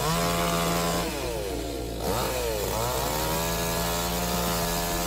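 Chainsaw running at high speed, its pitch dipping and rising back twice, then holding steady.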